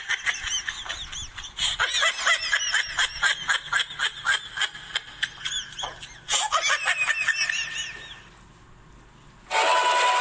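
A high-pitched, squeaky laughing sound effect, a rapid string of short chirping squeals lasting about eight seconds. It fades out, and after a short gap background music starts near the end.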